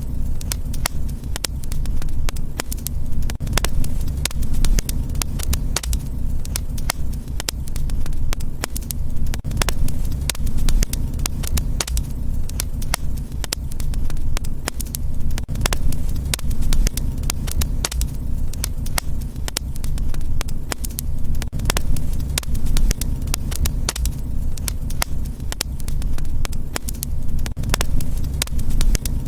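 Fireplace fire crackling: frequent sharp pops and snaps over a steady low rumble of the flames.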